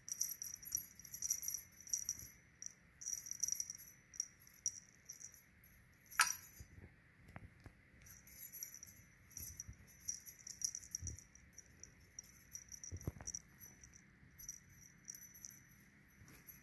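Cat feather wand toy rattling in quick light bursts as a kitten bats, bites and tugs at it, with a sharp click about six seconds in and a couple of soft thumps later on.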